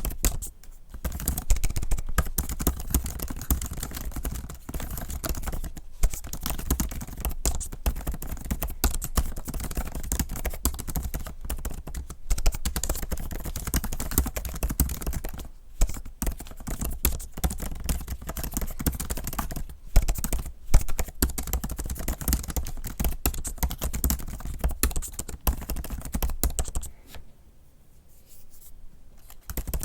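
Continuous fast typing on a bare M1 MacBook Pro keyboard with no keyboard skin: a quick, irregular stream of key clicks, pausing briefly near the end before typing resumes.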